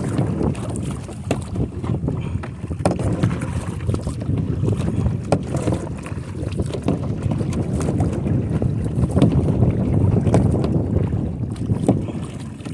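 Wind rumbling on the microphone of a kayak being paddled, with scattered short clicks and splashes from the paddle strokes.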